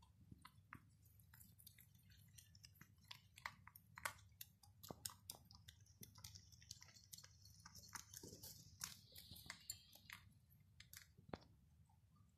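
A group of young rabbits nibbling and crunching leafy greens and stalks: faint, quick, irregular crunches overlapping one another.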